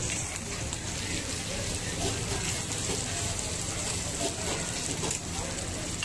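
Minced beef, kebab patties and eggs sizzling on a large flat griddle (tawa): a steady frying hiss, with a metal spatula scraping the plate now and then.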